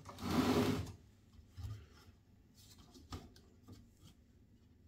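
A part being pulled out of a computer case: a scraping rub of under a second, then a few light clicks and taps of handling.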